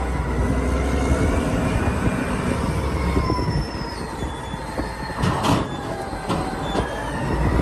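Caterpillar 992C wheel loader's V12 diesel engine running under load as the bucket is raised and tipped, with a high whine that wavers slightly in pitch. A sharp knock about five and a half seconds in, followed by a couple of fainter knocks.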